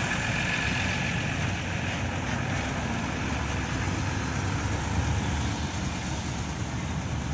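Steady road traffic noise: cars and trucks running past, with no single vehicle standing out.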